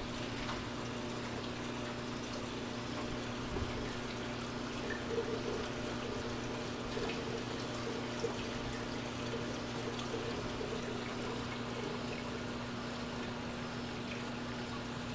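Reef aquarium water circulating, a steady trickle and pour of water with a constant low hum underneath, louder and more burbling around the middle.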